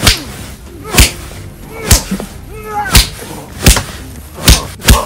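A string of punch impacts, seven sharp hits about one a second, the last two coming close together near the end.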